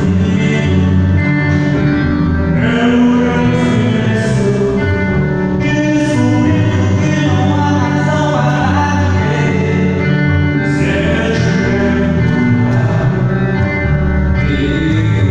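Band music with a singing voice over instrumental backing, playing steadily.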